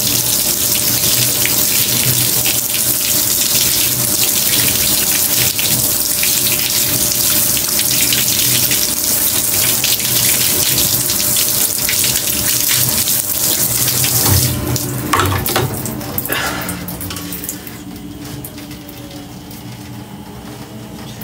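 Water spraying from a handheld shower head onto hair and splashing into a bathtub as the hair is rinsed. The spray stops about fourteen seconds in, followed by a few brief knocks and quieter sounds.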